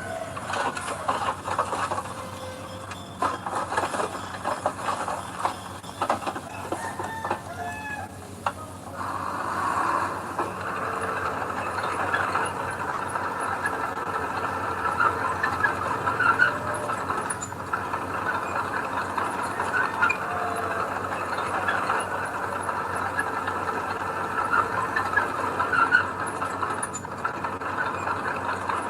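Earthmoving machinery running steadily, with a busy, high-pitched metallic clatter over the engine; it grows a little louder about a third of the way in.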